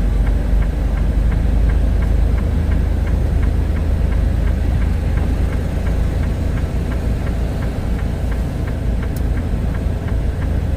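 Semi truck's diesel engine running with a steady low rumble in the cab, with the hazard flashers ticking evenly at about two to three clicks a second.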